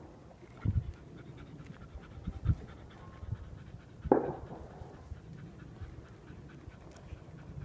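A dog panting in quick, even breaths close to the microphone. There are a few low thumps and one brief, louder burst about four seconds in.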